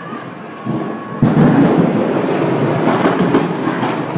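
An explosion: a sudden blast about a second in, followed by a loud, continuing rumble with a few sharp crackles in it.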